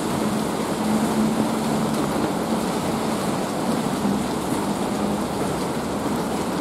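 Steady rain falling and pattering on surfaces, an even dense hiss with no letup. A faint low hum runs underneath, fading in and out.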